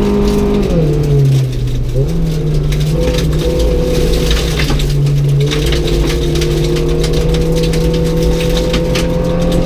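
A rally car's engine heard from inside the cabin on a gravel stage. Its pitch falls about a second in as the driver comes off the throttle, picks up again, and from about halfway climbs steadily under acceleration. Gravel crunches and pings off the underside throughout.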